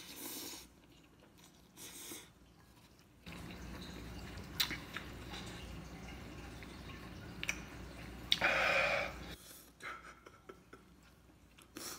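A man slurping a mouthful of spicy instant noodles, then chewing with wet mouth clicks and smacks. About eight seconds in he lets out a hard hiss of breath through pursed lips against the chili burn.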